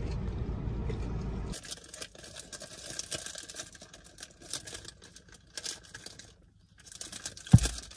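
A low steady rumble that cuts off about a second and a half in. Then packaging is crinkled and torn with the hands inside a car, in many short crackles, with one sharp thump near the end.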